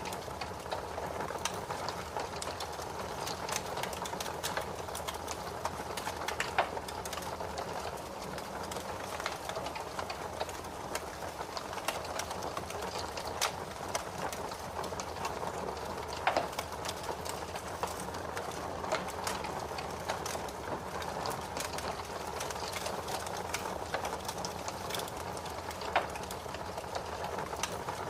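Fire in a fireplace crackling steadily: a soft hiss dotted with frequent small ticks, and three louder pops spread through it.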